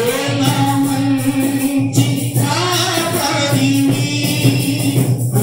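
Telugu Christian devotional song: voices singing long held, gliding notes over steady instrumental accompaniment.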